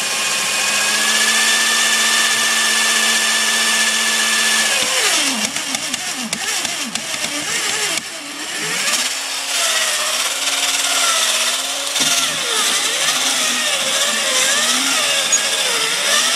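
Robot 2001 toy robot running under power: its electric motor and plastic gears whirring, with electronic sound effects from its speaker, a steady tone for the first few seconds, then warbling tones that waver up and down.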